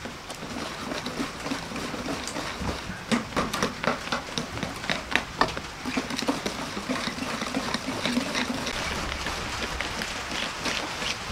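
Wire whisk stirring flour into egg batter in a stainless steel bowl: irregular clicks and taps of the wires against the metal, most frequent in the middle.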